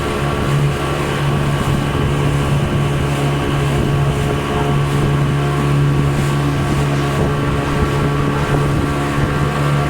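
Tour boat's engine running steadily, a constant droning hum, with some wind on the microphone.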